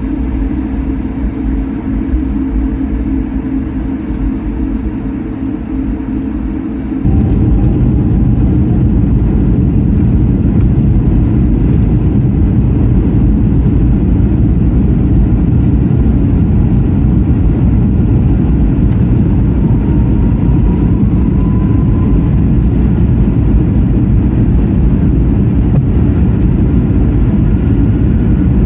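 Cabin noise inside an Airbus A220-300 jet airliner: the steady rush of its Pratt & Whitney geared turbofan engines and airflow heard from a window seat. It jumps abruptly to a louder, denser rush about seven seconds in and then holds steady.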